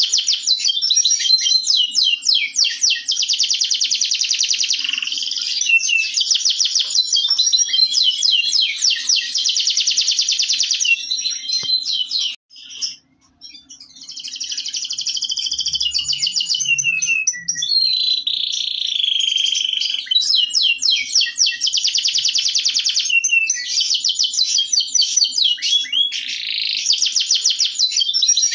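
Domestic canary singing a long, continuous song of fast, evenly repeated trills and rolls. The song breaks off briefly about twelve seconds in, and a held, drawn-out note comes a little past the middle.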